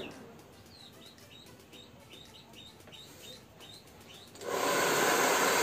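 A small bird chirps over and over, short high chirps about three a second. About four and a half seconds in, a hand-held hair dryer switches on and blows with a loud, steady rush of air.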